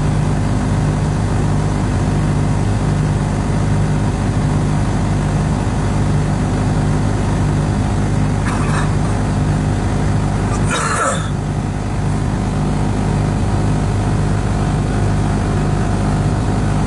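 Steady low hum of an idling car heard from inside its cabin, over the slow rumble of a freight train rolling past the crossing. A short rushing noise comes about eleven seconds in, with a fainter one a little before it.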